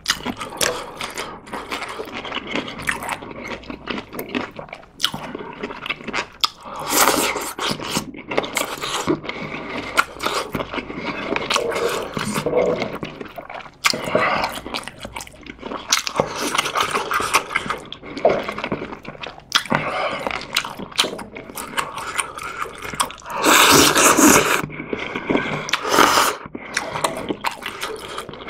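Close-miked eating of instant ramyeon with Vienna sausages and dumplings: chewing and biting with wet mouth clicks, and loud slurps of noodles, the longest about three-quarters of the way through.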